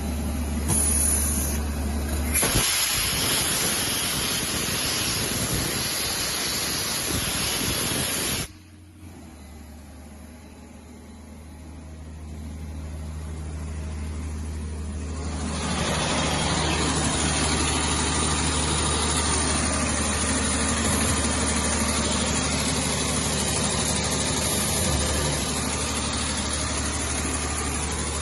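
Ingersoll Rand 17/235 compressor running, with compressed air blowing off in a loud hiss that cuts off suddenly about eight seconds in. The machine then runs quieter with a low hum, and its sound builds up over several seconds to steady loud running.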